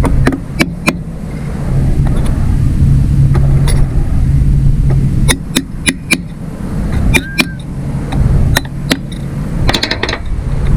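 Light sharp taps on the small tabs that hold a mower carburetor's choke butterfly, bending them down so the butterfly stops sliding and the choke can close all the way. About a dozen clicks come in irregular groups, one ringing briefly, over a steady low hum.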